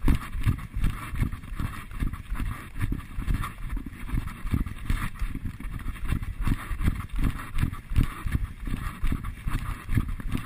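Runners' footsteps on a dirt and grass trail: a steady rhythm of dull thuds, a few strides a second, with the jolting of a body-worn action camera.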